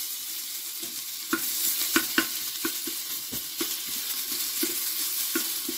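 Minced garlic sizzling in hot oil in a pressure cooker, with a steady hiss. A wooden spoon stirs it, knocking and scraping on the metal pot about twice a second.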